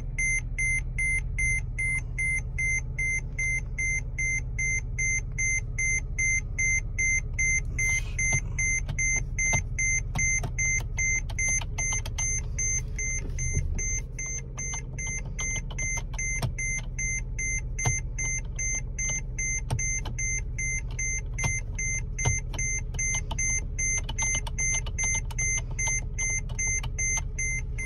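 Car dashboard warning chime beeping rapidly and without a break, with red warning lights lit on the instrument cluster, over the low steady hum of the engine idling. The beeping is a fault warning from a car that is failing.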